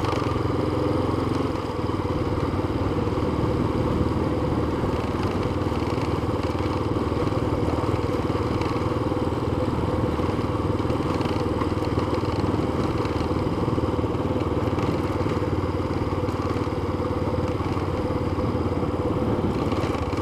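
Yamaha FZ25 motorcycle's single-cylinder engine running steadily while riding, with a brief small dip in level about a second and a half in.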